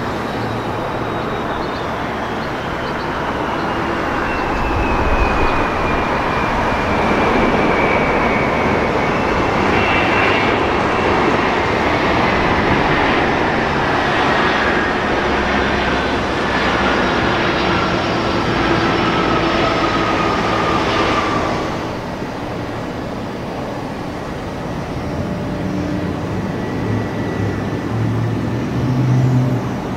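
Boeing 767 twin-engine jet airliner landing and rolling out: a loud engine roar with a whine that falls steadily in pitch. The roar drops off sharply about three-quarters of the way through, leaving quieter engine noise as the jet rolls along the runway.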